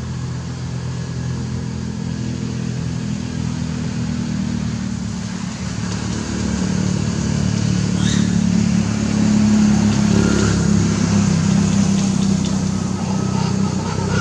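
An engine running steadily with a low hum, growing louder about six seconds in.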